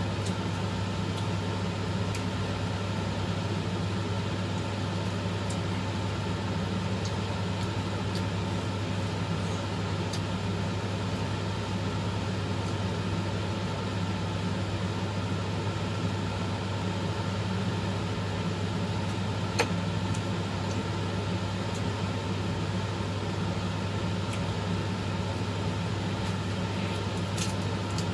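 Steady low mechanical hum, with a few faint clicks and one sharper tick about twenty seconds in.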